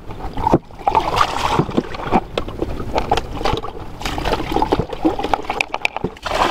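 Seawater sloshing and gurgling as a small plastic bucket is dipped at the edge of the rocks to fill it for a caught fish, with irregular knocks and clatter.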